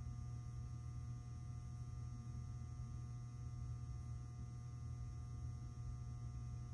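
Steady low room hum with a few faint steady higher tones above it; nothing else happens.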